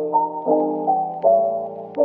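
Background music: a gentle keyboard melody over held chords, each note struck and left to fade.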